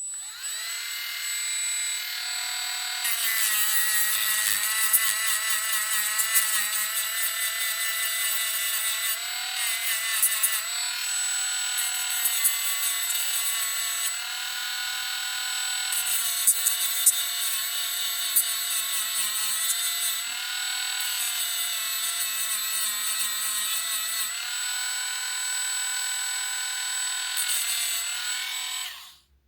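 Small electric grinder switched on, its motor running with a high whine, grinding metal on 18650 battery cells. The pitch dips a little each time the wheel is pressed in, with harsh grinding noise in several spells. It cuts off shortly before the end.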